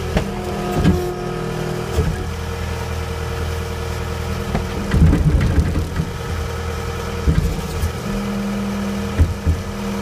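John Deere 318 skid steer's diesel engine running steadily under load, with irregular knocks and crashes as brush and branches strike the machine, loudest around the middle.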